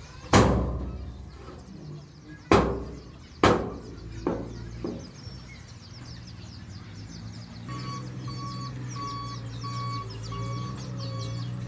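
Heavy earthmoving machinery on a fill site: three loud heavy thumps in the first few seconds, then two lighter ones. Later, an engine running steadily under a reversing alarm beeping about twice a second.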